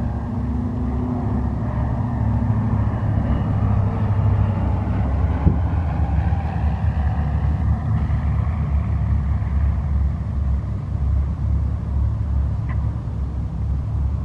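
A Diamond DA-42 twin-engine propeller plane's engines running as it comes in to land and touches down on the runway, over a steady low rumble.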